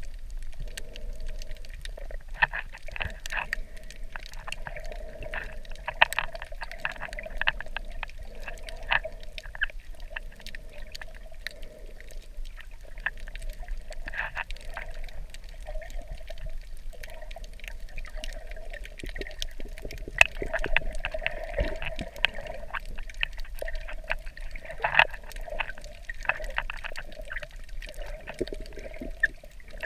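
Underwater ambience recorded with the camera submerged: a muffled wash of moving water with many scattered sharp clicks and crackles.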